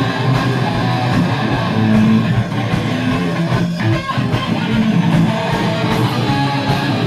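Live rock band playing loud: an electric guitar strummed over a drum kit.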